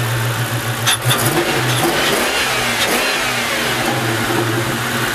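Ford Mustang GT 4.6-litre V8 idling, then revved once by hand at the throttle body about a second in, the engine speed rising and sinking back to a steady idle.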